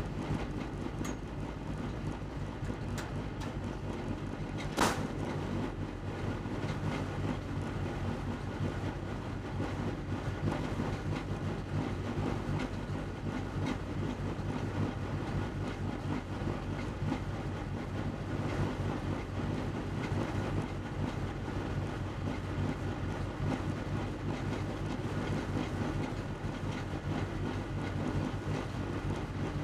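Race-prepared VW Beetle's air-cooled flat-four engine idling steadily, heard from inside the stripped, caged cabin. A single sharp knock stands out about five seconds in.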